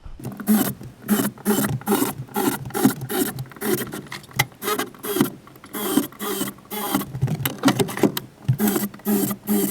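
Power drill pre-drilling holes through a wooden door, in rapid short bursts whose motor pitch rises and falls.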